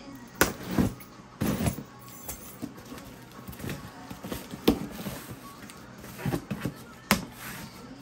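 A cardboard shipping box being handled and opened: the packing tape is slit and the box is shifted and turned, giving a series of sharp knocks and scrapes of cardboard.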